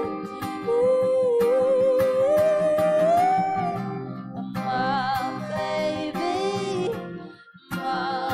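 Live acoustic pop song: a woman singing lead, with long held notes and vibrato, a man singing harmony at his own mic, and acoustic guitar. The music drops away briefly about seven seconds in, then picks up again.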